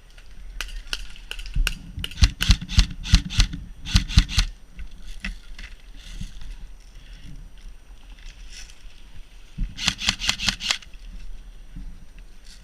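KWA KM4 airsoft electric rifle firing quick strings of single shots, each a sharp snap. One string of about eight shots comes around two to four seconds in, and a shorter, faster string of about six comes about ten seconds in.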